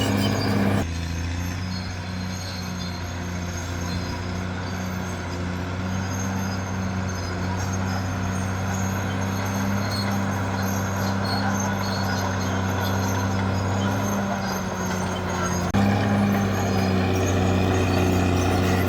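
Caterpillar D6R bulldozer's diesel engine running at a steady speed. The sound changes abruptly about a second in, then again near the end, where it gets louder.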